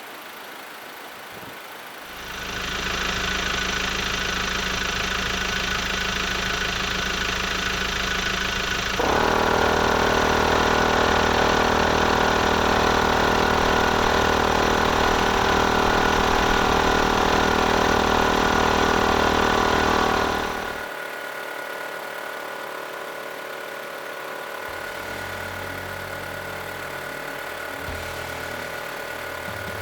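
12V portable air compressor, a no-name T-MAX knock-off, running steadily while inflating a truck tire. It comes on about two seconds in, gets clearly louder about a third of the way through, and cuts out about two-thirds of the way in, leaving a quieter steady hum.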